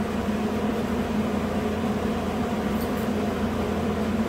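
A steady low mechanical hum that holds even throughout.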